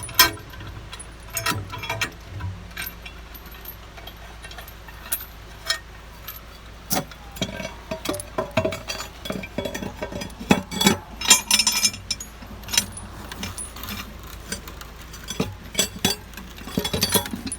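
Steel lifting chain rattling and clinking as it is handled and hooked on, in irregular bursts of sharp metal clinks, busiest about ten to twelve seconds in.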